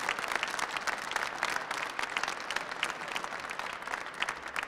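Applause from a few dozen people clapping, a dense run of hand claps that eases off slightly near the end.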